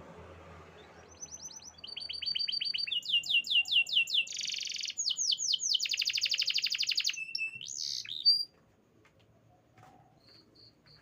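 Domestic canary singing a long rolling song made of fast trills of repeated high notes that change pitch from phrase to phrase, with a buzzy passage in the middle. The song stops abruptly about eight seconds in, leaving a few faint chirps.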